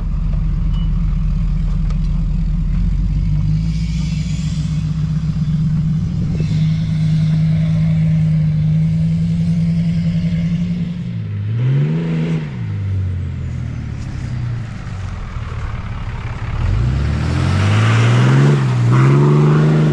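Pickup truck engine running steadily, then revved: one short rev about twelve seconds in, and two stronger revs near the end.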